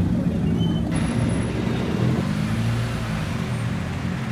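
A car engine idling, its low hum wavering in pitch about halfway through.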